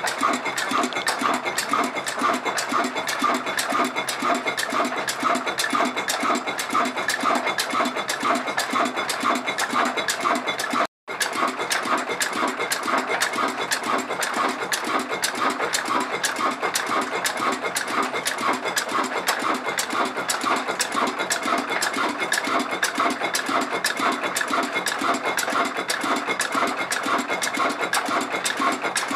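Old Ruston Hornsby diesel engine running steadily with a fast, even pulsing beat. The sound cuts out for a moment about eleven seconds in.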